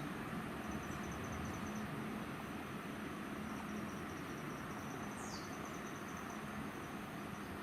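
Outdoor ambience: an insect keeps up a high, pulsing trill over a steady background hiss and faint low hum, and a short falling bird chirp comes about five seconds in.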